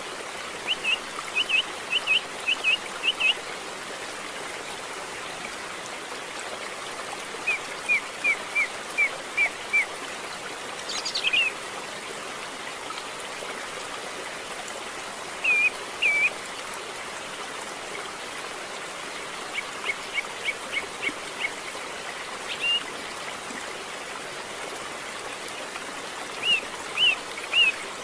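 Canary chick begging with short, high peeps in quick bouts of two to six while it is hand-fed, over a steady hiss.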